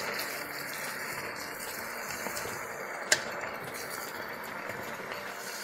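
Shredded cabbage and vegetables sizzling steadily in a stainless steel pot as they are stirred with a wooden spoon, with one sharp click about three seconds in.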